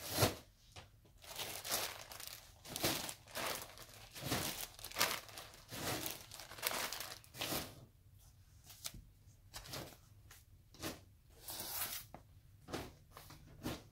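Plastic bags and yarn packaging rustling and crinkling as they are handled and moved, in irregular bursts that thin out in the second half.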